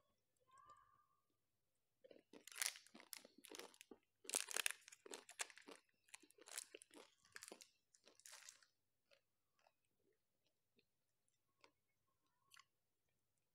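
Close-miked crunching and chewing of a chocolate-coated ice-cream bar, the hard chocolate shell cracking between the teeth. It starts about two seconds in, runs for about six seconds, and then trails off into a few faint clicks.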